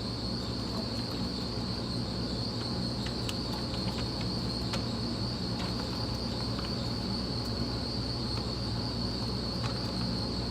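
Steady background hum with a constant high-pitched whine and a few faint ticks; no shots are fired.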